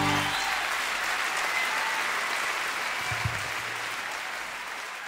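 Audience applauding at the end of a choir song: the last held chord of the music stops a moment in, and the clapping then slowly fades. A brief low thud comes about three seconds in.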